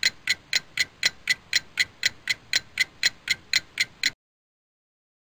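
Countdown ticking sound effect, about four sharp ticks a second, counting down a film-leader countdown and stopping abruptly about four seconds in.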